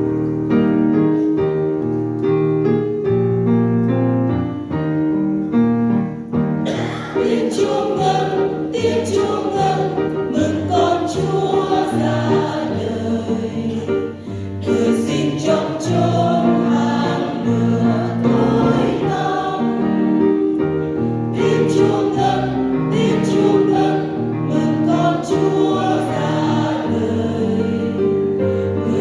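Church choir singing a Vietnamese hymn with keyboard accompaniment. The keyboard plays alone for about the first six seconds, then the choir comes in, singing in parts.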